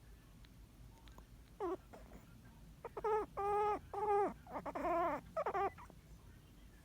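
Yorkshire terrier snoring in its sleep with high squeals that sound like a puppy whimpering. One short squeal comes about one and a half seconds in, then a quick string of squeals follows over about three seconds, each dropping in pitch at its end.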